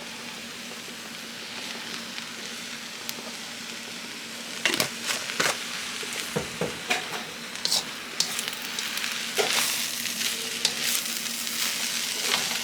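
Chicken fried rice sizzling in a hot pan, with a spatula scraping and knocking against the pan from about five seconds in as the rice is stirred.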